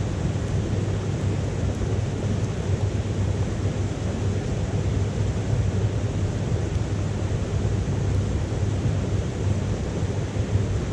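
Wood fire burning in a small titanium wood stove, with a few faint crackles over a steady low rumble.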